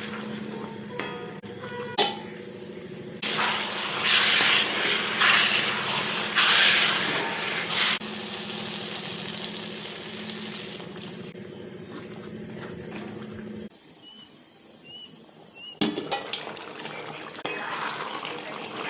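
Water running or being poured, in loud stretches of rushing noise a few seconds in, over a steady low hum.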